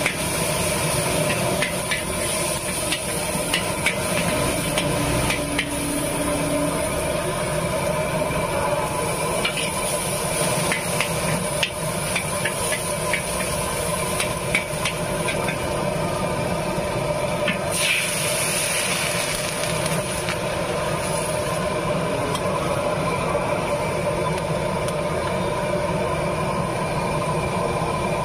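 Garlic frying in oil in a steel wok over a gas wok burner: the burner's steady low rumble under sizzling, with a steel spatula scraping and clicking against the wok, most often in the first half. About 18 seconds in, a brief louder hiss of sizzling.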